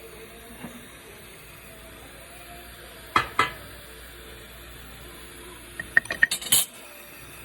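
Small metal pieces or tools clinking against each other over a steady hiss. There are two sharp knocks about three seconds in, then a quick run of clinks near six seconds.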